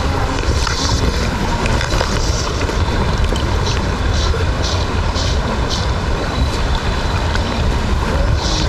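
Steady rush of stream water with wind rumbling on the microphone, and short repeated hisses of fly line being stripped in by hand through the rod guides.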